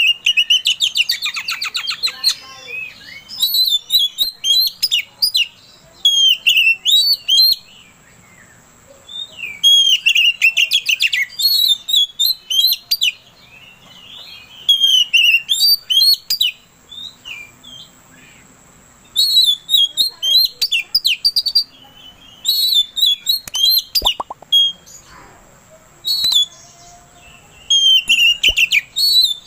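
Caged oriental magpie-robin singing loud, varied phrases of whistled notes and fast chattering runs, each phrase a few seconds long with short pauses between. This is the full, energetic song that keepers call gacor, used as a lure to stir other magpie-robins.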